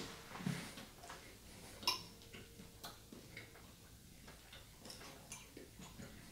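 Light clicks and scrapes of a metal fork against a serving plate as rice is scooped, with one sharper click about two seconds in, and quiet chewing between.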